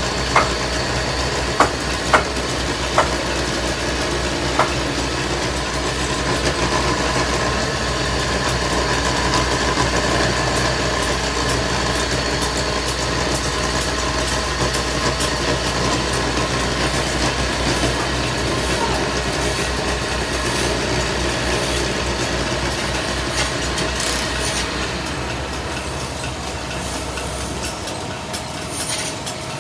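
Wood lathe running steadily with a machine hum while a lac stick and a burnishing strip are pressed against the spinning wooden cot leg, adding a rubbing friction noise. A few sharp clicks sound in the first few seconds, and the low hum drops away near the end.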